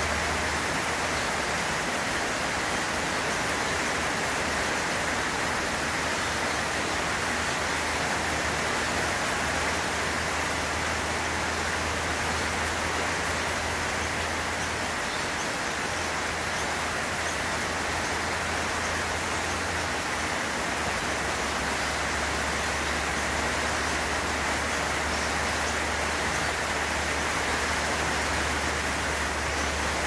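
Steady rain falling, an even hiss.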